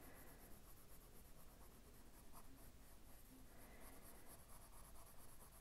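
Faint scratching of a Prismacolor coloured pencil on paper, stroked lightly back and forth.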